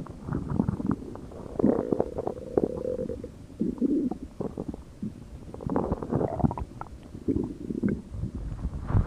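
Human stomach growling: an irregular run of gurgles, pops and low rumbles, with one drawn-out higher note a couple of seconds in.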